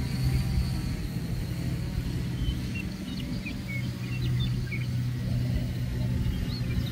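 Blade 350 QX quadcopter hovering and drifting at a distance: its motors and props make a steady low hum that swells and fades as it moves, with wind rumbling on the microphone. A few short high chirps come in the middle and near the end.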